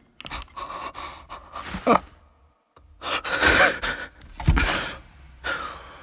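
A person's sharp, breathy gasps in short bursts, in two clusters, with a deep thump about four and a half seconds in.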